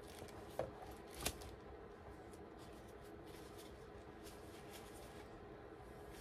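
Two light clacks about half a second and a second in as the painted coaster tile is set spinning on a fluid-art paint spinner. After that comes a faint steady hum with scattered soft ticks while it spins.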